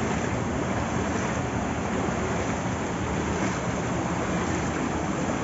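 Steady rushing noise, heaviest in the low end, with no distinct events.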